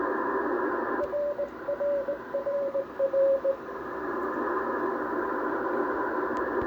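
Amateur-radio receiver on 10 GHz giving steady hiss, with a Morse code (CW) tone keyed on and off from about a second in for roughly two and a half seconds, then hiss alone.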